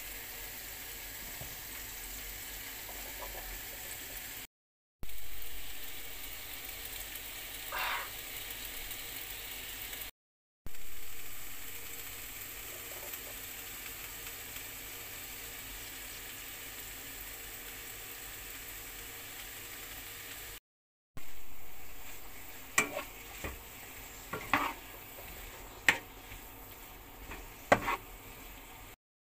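Vegetables stir-frying in a hot frying pan, a steady sizzle. Near the end a spatula knocks and scrapes against the pan several times as the food is stirred.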